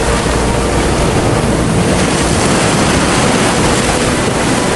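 Loud, steady rushing noise of heavy rain and flowing floodwater, with wind on the microphone.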